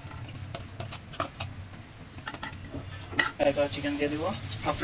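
A spatula and spoon knock and scrape against a non-stick frying pan as chopped onions and green chillies are tipped into the oil. About three and a half seconds in, the oil starts sizzling.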